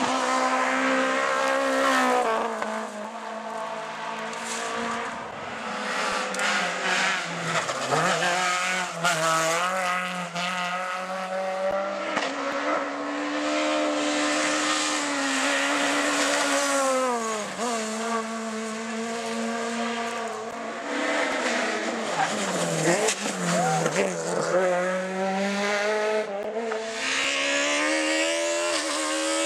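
Rally cars passing one after another through tight corners, their engines revving high and changing pitch over and over as they shift gear, brake into the bends and accelerate out.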